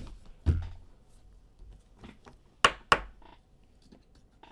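Trading cards and packs being handled on a table: a soft thump about half a second in, then two sharp clicks close together near the middle, with faint small handling sounds between.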